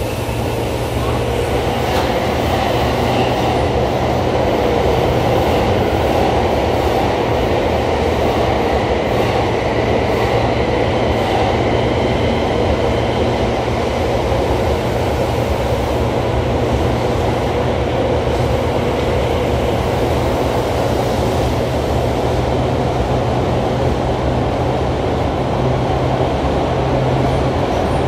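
Tobu 9000 series electric train running at steady speed through a subway tunnel. Its wheels, track and motors make a loud, even rumble.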